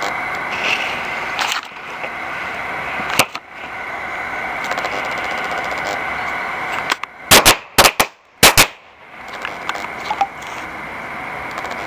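Firecrackers in a paper tube with a smoke bomb: a steady hiss from the burning fuse and smoke composition, a sharp crack about three seconds in, then four loud bangs in two quick pairs about seven and eight seconds in, the firecrackers going off in two stages each.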